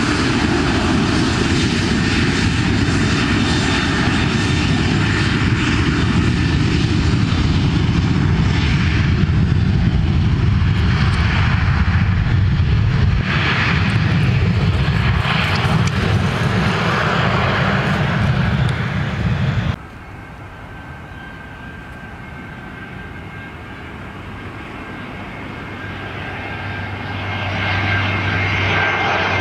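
KLM Boeing 737 jet engines at takeoff power, a loud steady rumble through the takeoff roll and lift-off. It cuts off suddenly about two-thirds of the way in, replaced by the quieter engines of a TAP Airbus A319 on final approach, whose whine grows louder near the end.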